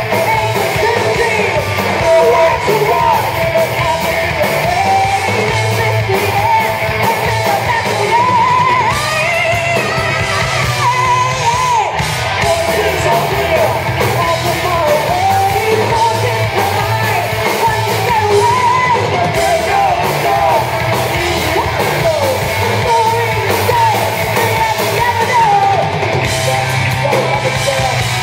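A live heavy metal band playing: a singer's voice soars over distorted electric guitars, bass and drums, ringing in a large hall.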